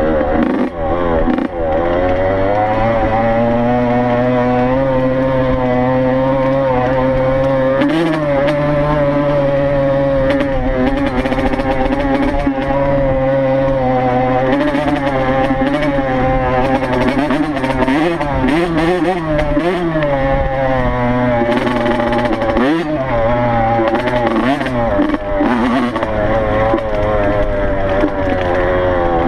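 Yamaha YZ85 two-stroke single-cylinder dirt bike engine running while being ridden, mostly at a steady pitch that dips and rises with throttle changes a few times, notably around 8 seconds in and again between about 18 and 25 seconds in.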